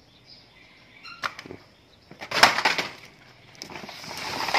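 A woven plastic sack rustling and crinkling as it is handled, with a sharp click about a second in and a louder crackling burst about halfway through.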